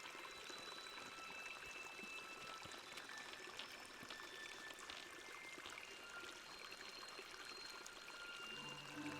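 Small mountain stream running and trickling, faint and steady. Music comes in near the end.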